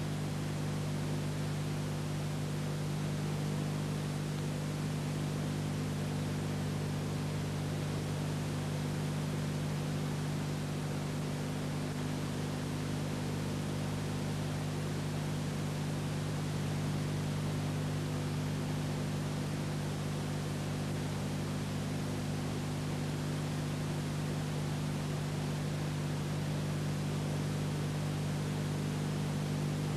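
Steady hiss with a low electrical hum underneath and nothing else: the background noise of a silent old film's video transfer.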